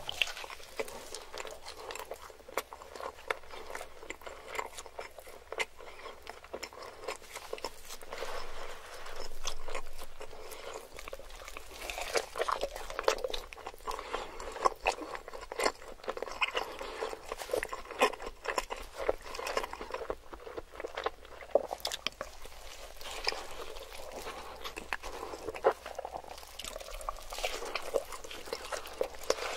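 Close-miked biting and chewing of a tall stacked cheeseburger with melted cheese: a dense, irregular run of wet clicks, smacks and soft crunches.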